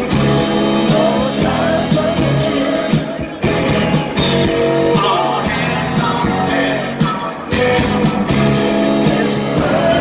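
Live rock band playing through a PA: electric guitars, bass and a drum kit keeping a steady beat.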